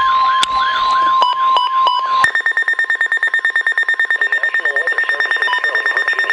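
NOAA weather radio receivers sounding a warning alert. A warbling siren plays over the steady 1050 Hz broadcast warning tone, and both stop about two seconds in. Then a high-pitched alarm beeps rapidly.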